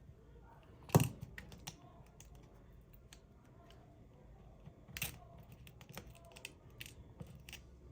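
Small hard clicks and taps of tools and tiny parts handled during phone disassembly, with two louder knocks, one about a second in and one about five seconds in.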